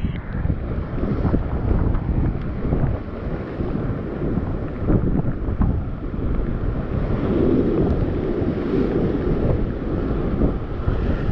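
Strong wind buffeting the microphone in a steady low rumble, with the wash of sea waves on the rocks underneath.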